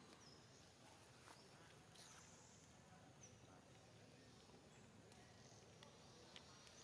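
Near silence, with a few faint, short, high-pitched animal chirps and some light clicks.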